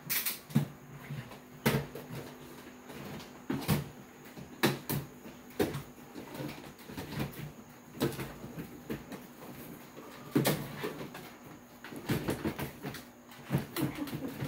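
Irregular knocks, clicks and clatter of a stiff skeleton prop being shifted and fitted into a hearse prop's cutout.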